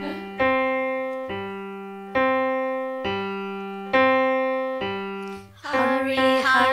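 Keyboard piano playing the introduction to a children's song: six chords struck a little under a second apart, each ringing and fading, with a wavering melody coming in near the end.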